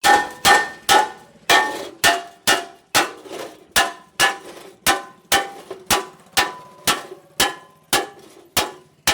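A hammer striking metal in a steady rhythm, about two blows a second, each blow ringing briefly.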